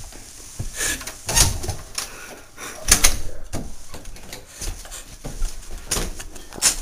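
A front door being shut, then a run of sharp knocks and bumps as someone stumbles in.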